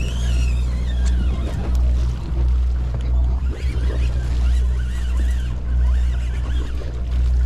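Sportfishing boat's engine running with a steady low hum.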